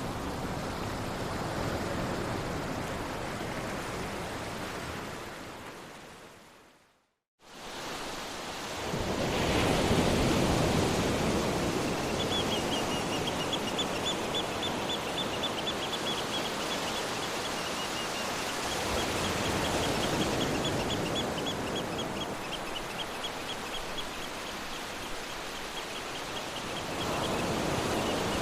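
Sea surf washing in a steady hiss, fading out to silence about seven seconds in and swelling back a couple of seconds later. Over the surf, from about twelve seconds in, a high, fast chirping trill repeats.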